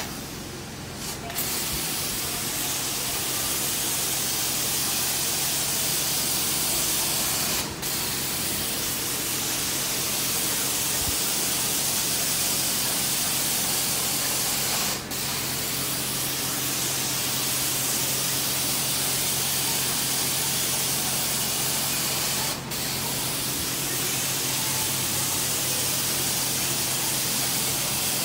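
Carpet-cleaning extraction wand (Devastator wand) spraying and vacuuming carpet: a steady, loud hiss of spray and suction over a low machine hum, dipping briefly three times.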